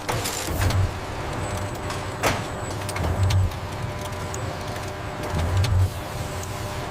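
Factory machinery running steadily, with a deep thud repeating about every two and a half seconds and a sharp click about two seconds in.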